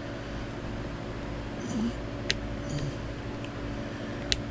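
Two sharp clicks of small tools or wooden parts being handled during model-boat planking, one about halfway through and one near the end, over a steady low hum.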